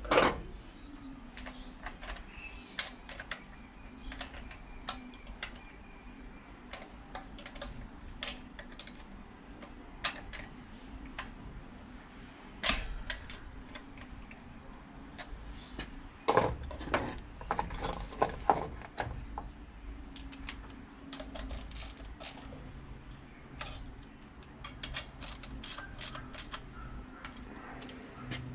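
Hand tools clicking and clinking on the metal linkage brackets of a set of individual throttle bodies as the brackets are tightened: irregular light clicks and taps, a few sharper knocks among them.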